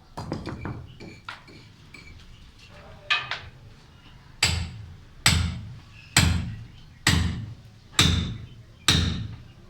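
Hammer striking a steel chisel to break away a concrete corner: a few light taps first, then, from about halfway in, six heavy blows about a second apart, each ringing on briefly.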